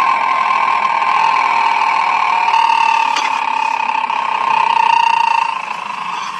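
Electric car's transmission whine picked up through a Steelman electronic noise-finder clipped to the transmission: a steady high whine with a fainter higher tone above it, wavering slightly in pitch and easing off a little near the end. This is the noise being traced, most audible at the transmission.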